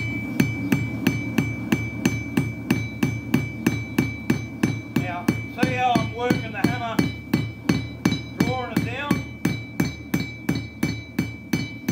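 A hammer beating a railway-spike knife blade on a steel anvil, an even run of about three to four blows a second. Under the blows the anvil holds a steady high ring.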